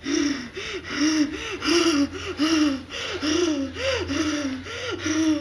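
A woman gasping and moaning in quick, regular breaths, each a short voiced 'ah' rising and falling in pitch. This is the laboured breathing of someone in the pain and distress of drug withdrawal.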